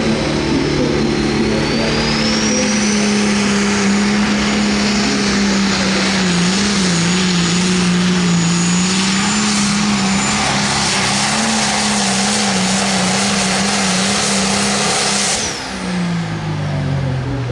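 John Deere 6030 Limited Pro Stock pulling tractor's turbocharged diesel running loud at full throttle under load, its note wavering as it drags the sled, with a high turbo whistle rising over the first few seconds and then holding. About fifteen seconds in the throttle comes off and the engine note falls away as the pull ends.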